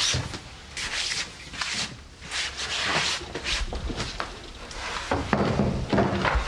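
Rustling and swishing of a cloth tablecloth being spread and smoothed over a wooden table, in a series of swishes with a few light knocks of handling.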